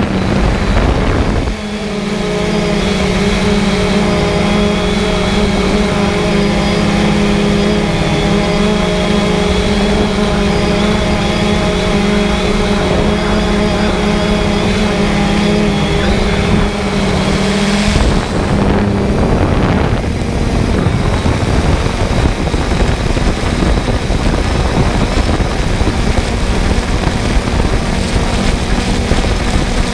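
Quadcopter drone's motors and propellers running, heard up close from the camera riding on the drone. For the first half it is a steady, even hum; about halfway through it breaks into a rougher, rushing noise.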